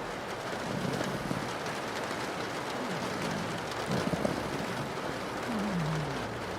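Steady rain on a window, with a pug snoring low underneath it: several short snores, the last one falling in pitch near the end.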